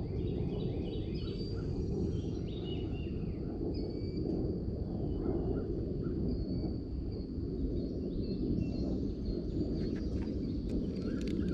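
Several birds chirping and calling repeatedly over a steady low rumble of outdoor background noise.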